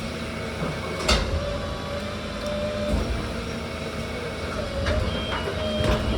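Garbage truck running with a steady drone and a held whine, with one sharp metallic bang about a second in and faint short beeps near the end.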